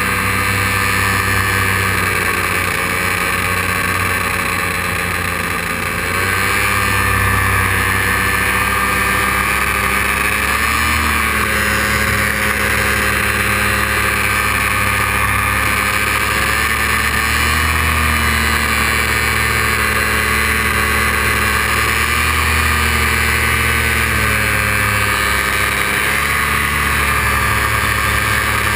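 Paramotor engine and propeller running steadily in flight, its pitch rising and falling slightly a few times as the hand throttle is worked, getting a little louder about six seconds in.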